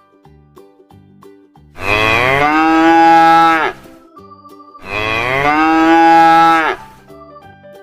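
A cow mooing twice: two loud, long moos of about two seconds each, the first beginning nearly two seconds in and the second about a second after the first ends. Each moo drops in pitch as it ends. Faint background music plays between them.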